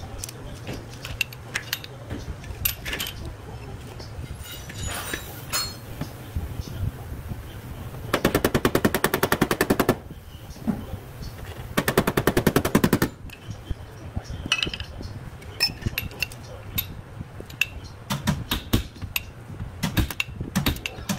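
A hand-held power tool rattles rapidly against the car's sheet-metal wheel-arch panel in two bursts, about two seconds and then about a second. Scattered taps and clicks fall around the bursts.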